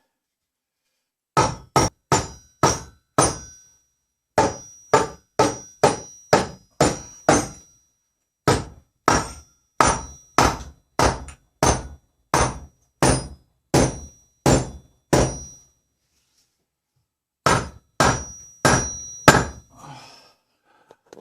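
Hammer striking repeatedly in four runs of quick blows, about two a second, each blow with a short metallic ring.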